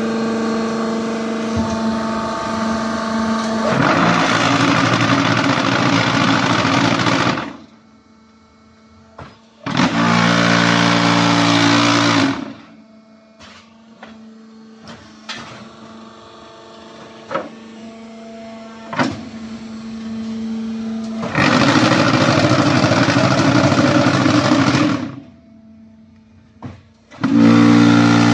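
QT4-18 hydraulic concrete hollow block machine running through an automatic production cycle: a steady hum from the hydraulic pump motor throughout, with four loud stretches of rattling from the mould-table vibrators, each a few seconds long, the first about four seconds in and the last near the end. The quieter gaps between them hold single clanks of the moving mould and pallet.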